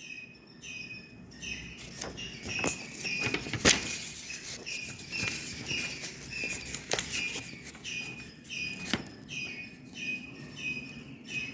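A bird chirping over and over, short notes about twice a second, with a few sharp clicks among them, the loudest about a third of the way in.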